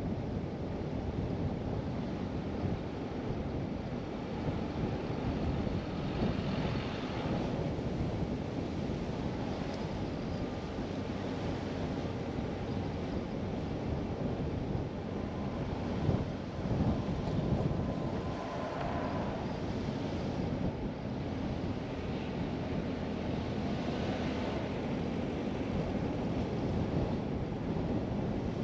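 Steady rumble of a car driving along a paved street, road and tyre noise mixed with wind buffeting the microphone.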